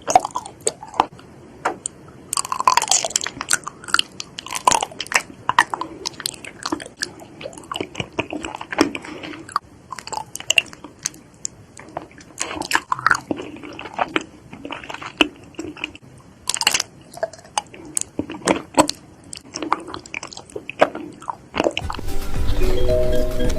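Close-miked eating: crisp, crunchy bites and wet chewing, many sharp crunches in quick irregular succession. About 22 s in it changes to music.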